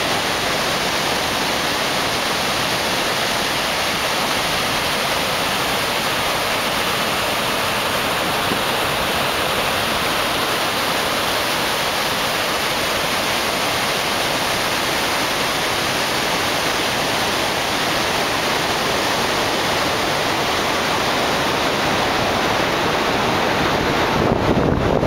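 A large waterfall's torrent rushing, a steady dense hiss of falling water, with a little more low rumble in the last second.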